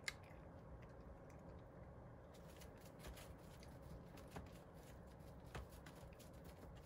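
Faint clicks and light rustling from a toy poodle licking the last food out of its ceramic bowl and moving about on the mat of its crate, with a sharper click right at the start.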